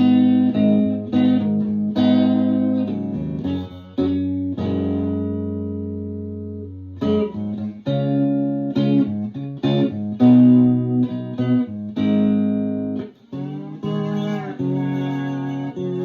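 Chambered Telecaster-style electric guitar played with a slide, picking arpeggios in the key of G. About halfway through a phrase, a chord is left ringing and fading before a new run of notes starts.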